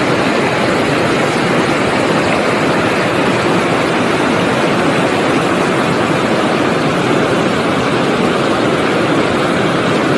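River water rushing over shallow limestone ledges and small rapids: a steady, unbroken roar of flowing water.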